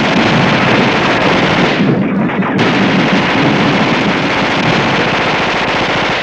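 A dense, continuous barrage of gunfire and explosions, a recorded war soundscape played loudly. The top end thins briefly about two seconds in.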